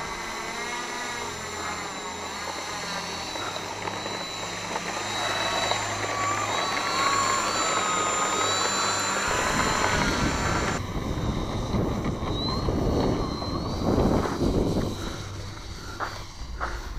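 Electric motor and propeller of an ArtTech 1700mm Pilatus PC-6 Turbo Porter radio-controlled model plane, whining with a pitch that rises and falls as the throttle changes. About ten seconds in the whine fades under a dense rushing noise, with a few sharp clicks near the end.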